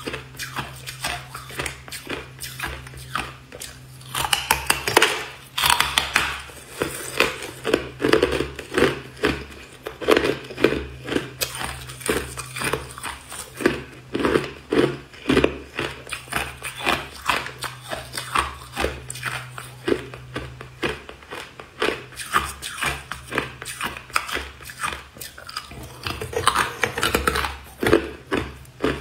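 Hard clear ice being bitten and chewed, a quick, continuous run of crunches and cracks.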